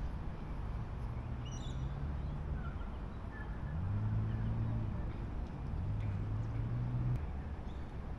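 A distant engine droning low, its pitch stepping up a little before halfway and cutting out about a second before the end, over steady outdoor background noise with a few faint high chirps.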